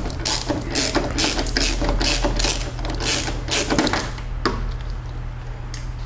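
Hand ratchet clicking in quick repeated strokes, about three a second, while pre-loosening a tight Torx 30 screw by hand. The strokes stop about four seconds in, with two single clicks after.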